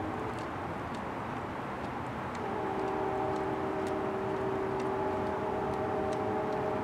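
A distant steady horn chord of several notes sounds briefly at the start, stops, then sounds again from about two and a half seconds in over a constant low rumble. Faint, scattered ticks of a cat crunching a mouse come from the bowl.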